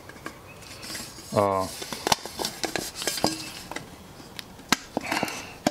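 Aluminum camp cook set pieces (pot, lid and skillet) clinking and clattering together in irregular knocks as they are handled and pulled apart. A short hummed voice sounds about a second and a half in.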